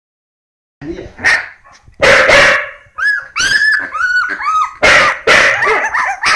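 Hokkaido dogs barking and yelping, starting about a second in: a few loud, harsh barks broken up by a run of high, arching yelps and whines, then quick short yips near the end.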